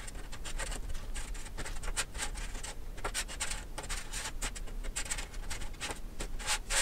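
Sugar-coated sour fruit gums being slid about and set down by hand on a hard tabletop: a steady run of irregular soft taps and scratchy rubbing.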